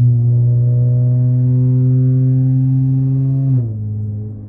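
Car exhaust through MagnaFlow Magnapack mufflers, a steady drone like an angry hornet under throttle, its pitch slowly creeping up. About three and a half seconds in the pitch drops sharply and the sound quietens.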